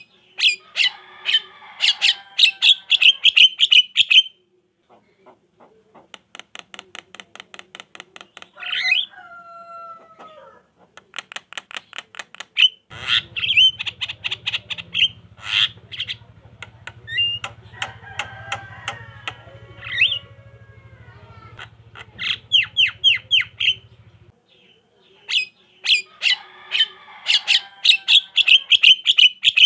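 Javan myna (jalak kebo) chattering: bursts of rapid harsh notes and squawks, a run of quick even clicks, and a falling whistle, with the opening phrase repeated near the end. A faint low hum sits under the middle part.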